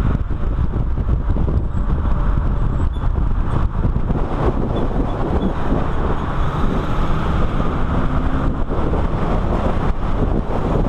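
Car driven at speed on a race track, heard from a camera mounted on the outside of its body: steady wind rush buffeting the microphone over engine and tyre noise.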